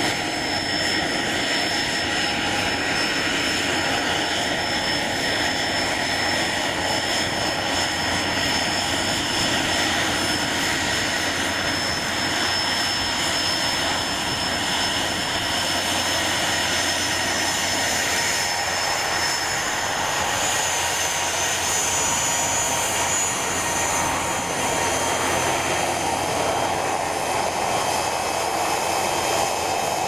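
Twin turbofan engines of a Cessna 680 Citation Sovereign running at taxi power: a steady jet whine with a thin high tone over a rushing noise.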